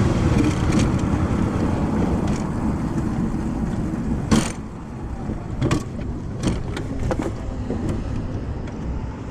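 X15 super pocket bike's engine running under wind noise, then dying out about four and a half seconds in as it runs out of gas. A quieter stretch with a few scattered clicks follows.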